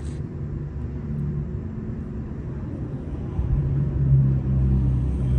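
Low engine rumble of a motor vehicle, growing louder about three and a half seconds in.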